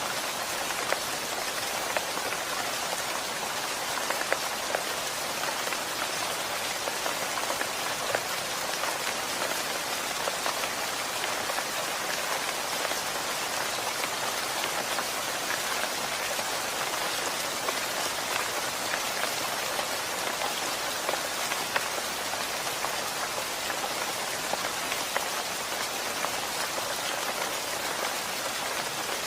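Steady rain falling, with a constant hiss and many individual drops ticking sharply on a surface.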